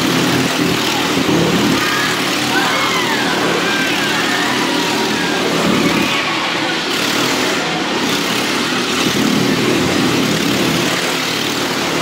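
Motorcycle engine running steadily as the rider circles the vertical wooden wall of a wall-of-death drum, swelling and easing every few seconds.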